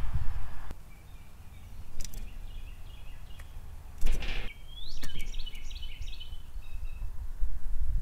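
Small birds chirping in short rising and falling calls, with a few sharp taps on the metal tray feeder. A brief loud flurry about four seconds in comes as a blue jay lands on the tray. A low wind rumble runs beneath.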